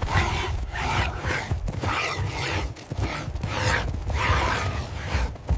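Heavy, rapid panting of a running person, short breaths about two a second, over low thuds of running feet and hooves on dry ground.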